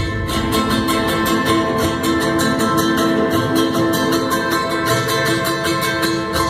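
Instrumental music from a live band: strummed acoustic string instruments in a quick, steady rhythm over held notes, with no singing.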